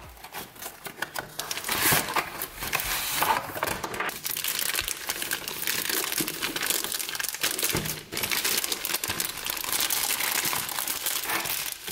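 Crinkling of a clear plastic zip bag as it is handled and pulled open, after the flap of a cardboard box is opened near the start; the crinkle is dense and continuous, quieter in the first second.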